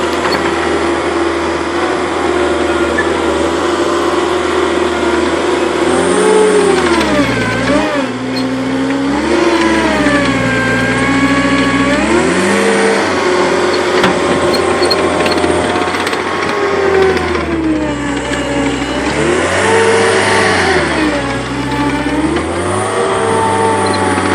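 Caterpillar 247B track skid steer's diesel engine running at high throttle. It holds a steady pitch for about six seconds, then sags and climbs back several times as the machine is driven and its hydraulics are worked.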